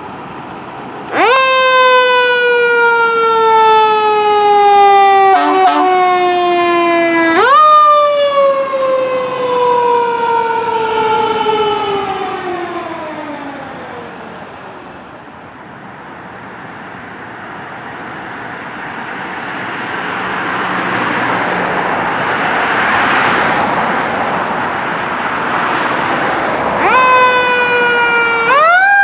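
Federal Signal Q2B mechanical fire-engine siren winding up fast, then coasting down in a long falling wail, twice, the second wind-down fading away over several seconds. A rushing truck and road noise then swells and fades, and the siren winds up again near the end.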